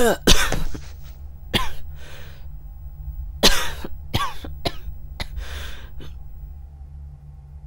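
A man coughing and gasping in a string of harsh fits, about nine in all, over a low steady hum. The fits stop a little before the end.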